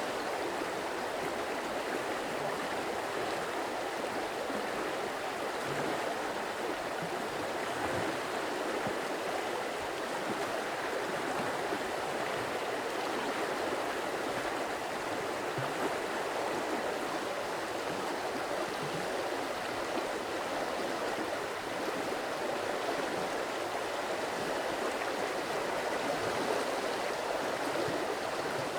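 Stream water flowing in a steady, unbroken rush.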